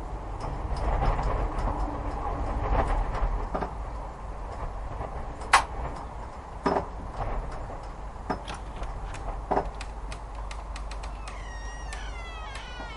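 Layered spooky sound-effect ambience: a steady low rumble with scattered knocks and clicks, one sharp click about halfway through, and squealing, falling creaks near the end.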